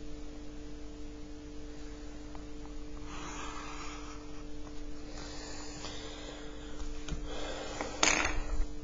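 Pencil scratching along a ruler on paper in two soft strokes, then a brief louder rustle near the end as the ruler is lifted off, over a steady electrical hum.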